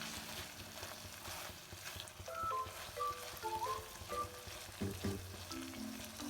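Food sizzling as it is stir-fried in a pan, with scraping from the stirring, under a light background music melody.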